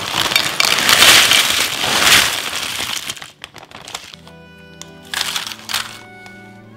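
Tortilla chips poured from a bag into a terracotta dish: a loud crackling clatter lasting about three seconds, then a few light clicks and a second, shorter crackle about five seconds in. Soft background music with held notes plays underneath.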